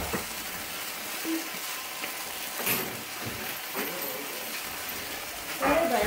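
Food sizzling steadily on a hot iron sizzler plate, with a few sharp crackles, and a brief louder burst near the end.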